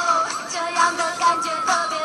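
Background music: a song with a high, gliding sung melody.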